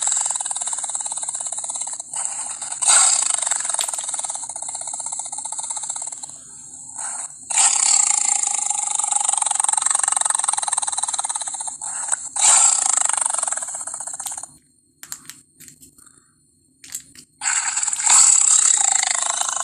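Sound-designed creature calls for the Indoraptor, a fictional dinosaur: a series of long, harsh, hissing screeches, several in a row, broken by short gaps. About three quarters through they give way to a few seconds of scattered short clicks and near silence, then another screech starts.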